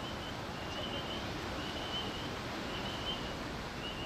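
Steady rushing wind noise, with a faint high chirp repeating about once a second.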